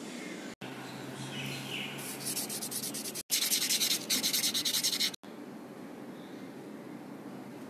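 Fine P1200 silicon carbide wet-and-dry sandpaper rubbed by hand on a Mitsubishi Triton's camshaft nose at the oil seal bore. It becomes a quick rhythmic rasp of several strokes a second through the middle, then gives way to a steady low background hum about five seconds in.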